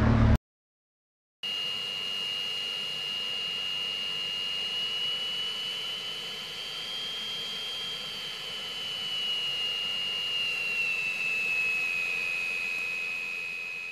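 Jet aircraft engine whine as a sound effect: a high steady whine over a faint rumble that starts about a second in, rises slightly in pitch around the middle, then drops lower near the end.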